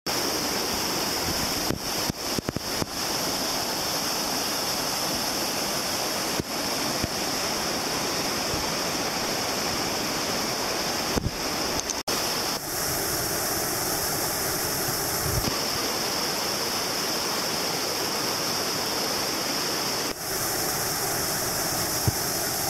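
Steady rushing of whitewater river rapids, shifting abruptly about halfway through and again near the end.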